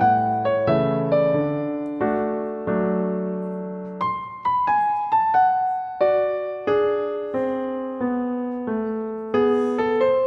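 Background music: a slow, gentle electric piano melody of single struck notes that each ring and fade.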